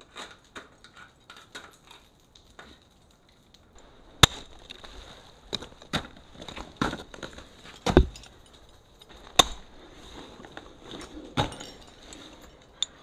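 Ice axes being swung into ice during climbing: a series of sharp, irregular chops and knocks, with light clinks of gear between them. The heaviest strikes come about four, eight, nine and a half and eleven and a half seconds in.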